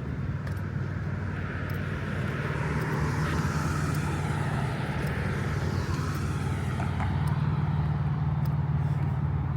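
Street traffic: a steady low engine hum, with a passing vehicle swelling and then fading about three to five seconds in.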